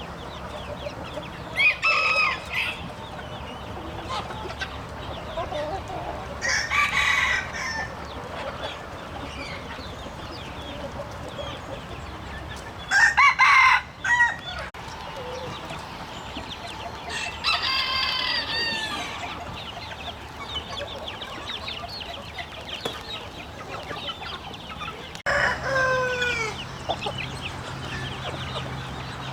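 A flock of chickens clucking and chattering steadily, with roosters crowing five times over it; the loudest crow comes about halfway through.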